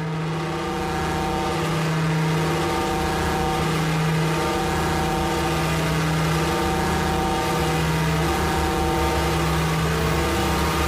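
Intro of an industrial hard techno mix: droning, engine-like synthesiser notes held for a second or two each, changing pitch, over a deep rumble that swells near the end. It fades in just before and reaches full level about two seconds in.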